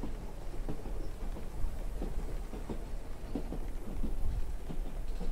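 Wind buffeting the microphone: a steady low rumble with irregular short knocks and rustles.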